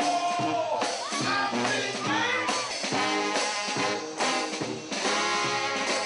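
Live music: a man singing held and sliding notes over a band keeping a steady beat.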